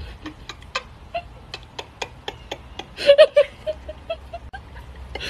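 A woman laughing under her breath: a string of short, quiet breathy pulses, with a louder burst of three quick laughs about three seconds in that trails off into a few softer ones.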